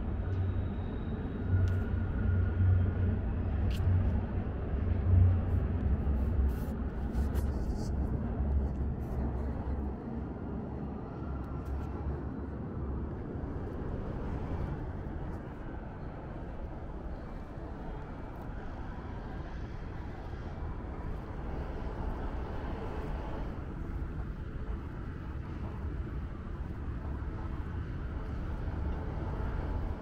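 Outdoor city ambience: a vehicle's low rumble that dies away about twelve seconds in, then a steady hum of background traffic.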